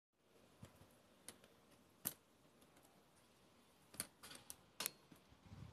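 Near silence broken by a handful of faint, irregular clicks, the loudest about two seconds in and a quick cluster of them around four to five seconds in.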